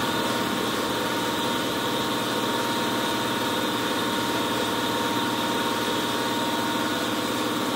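Air compressor running steadily: a constant mechanical hum with a steady high whine.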